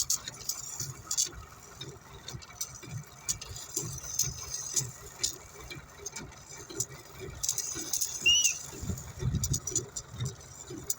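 Sand grit pattering and scraping as a top sand coat is spread on the road surface, with dense irregular clicks over a low rumble. There is a brief high squeak about eight seconds in.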